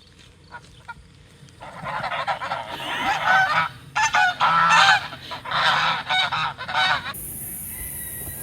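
Several geese honking together in a loud, overlapping clamour, starting about one and a half seconds in and cutting off abruptly a little before the end.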